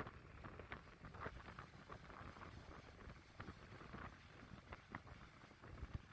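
Faint outdoor ambience: a low wind rumble on the microphone with scattered faint short clicks.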